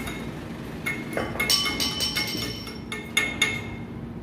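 Metal parts and tools clinking together during work on a disassembled pump motor: several light metallic strikes, one about a second and a half in ringing on for more than a second.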